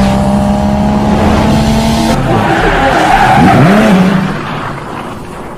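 Intro sound effect of a car engine revving with tyre squeal. The engine note holds steady for about two seconds, then swoops down and back up under a hiss, and fades out near the end.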